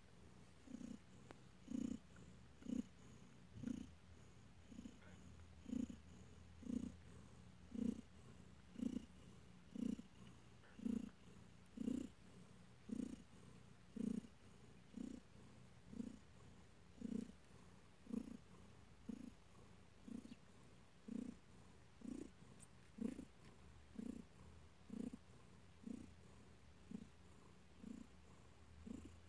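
Nursing mother cat purring softly, the purr swelling in a regular pulse about once a second.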